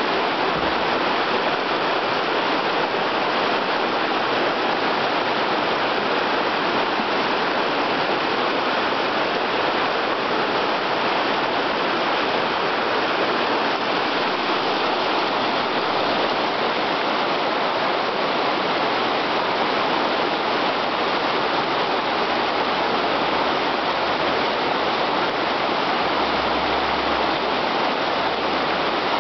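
Whitewater rapids of a small rocky river, a steady rush of fast water tumbling over stones.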